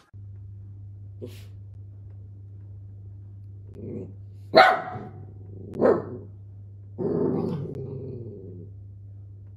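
Small dachshund puppy barking: a soft woof about four seconds in, two sharp barks a little over a second apart, then a longer drawn-out bark trailing into a growl. A steady low hum runs underneath.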